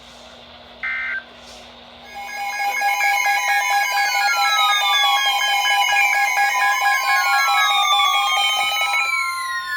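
The last of three short Emergency Alert System (SAME) end-of-message data bursts, about a second in. From about two seconds in comes the loud steady two-tone EAS attention signal, with several gliding tones sweeping across it. The lower tone stops near the end, leaving one tone.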